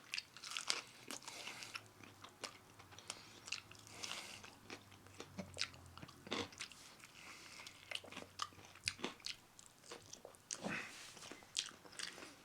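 A person chewing and biting into chicken wings, with irregular short crunches and clicks.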